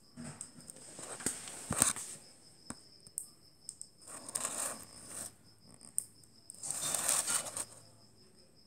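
A few sharp clicks, the loudest about two seconds in, with rustling between them; a click beetle snapping on a tile floor. Behind them runs a cricket's steady, high, pulsing trill.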